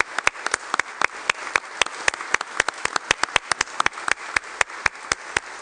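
Applause from a roomful of people clapping steadily, with individual hand claps standing out sharply from the rest.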